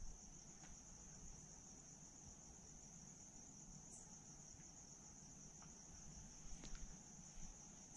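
Faint, steady trilling of crickets at night, one unbroken high note, with a few soft ticks near the end.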